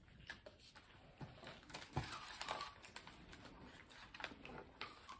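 Quiet, scattered small clicks and smacks of people chewing sandwiches, with light handling of paper food wrappers.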